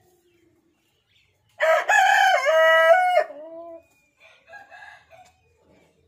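A rooster crowing once: one loud call of about two seconds, starting about a second and a half in and breaking in pitch partway through. Softer, short clucking calls from the hens follow shortly after.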